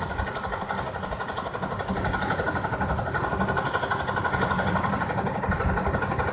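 An engine idling steadily, with no change in pace.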